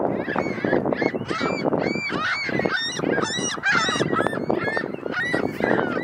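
A flock of birds calling together: a dense, unbroken run of short, overlapping calls, several a second.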